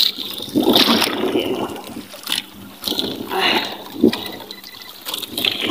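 Sea water splashing and lapping against the hull of a small outrigger boat in uneven surges, with one sharp knock about four seconds in.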